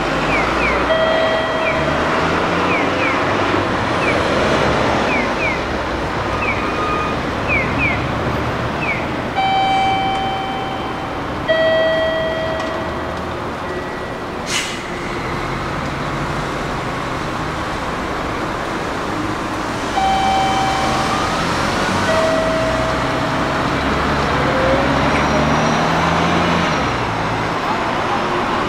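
Diesel engine of a Kyoto city bus, a Nissan Diesel Space Runner UA, running as it pulls through an intersection and drives off amid passing traffic, its note rising in steps in the second half. A two-note electronic tone, high then lower, sounds three times about ten seconds apart, and a short sharp hiss comes about halfway through.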